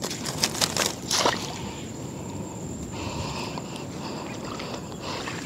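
Water sloshing, with a few short splashes in the first second or so.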